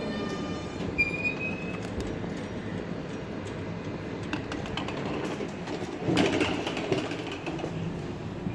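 Tatra KT8D5 tram running on its rails: steady rumble of wheels and running gear. A steady motor whine stops about a second in, and a louder patch of wheel squeal and clatter comes about six seconds in.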